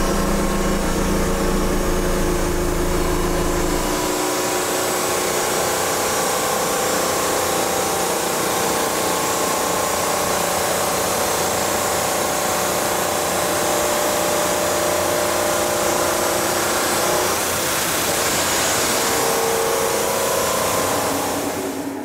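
Water-cooled lapidary wheels cutting and grinding hand-held stone: a steady, loud grinding hiss over the motor's hum. The low hum drops away about four seconds in while the grinding goes on.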